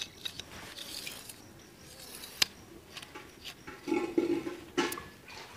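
Scattered small clicks and taps of the plastic and metal parts of a knapsack sprayer's spray lance being fitted and extended by hand.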